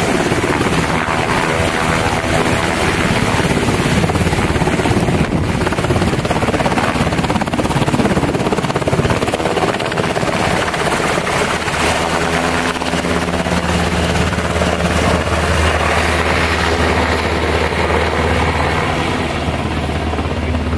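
US Navy H-60 Seahawk helicopter's rotor and twin turboshaft engines at takeoff power as it lifts off and flies away from the deck, loud and steady. About halfway through, a steady low hum comes in under it.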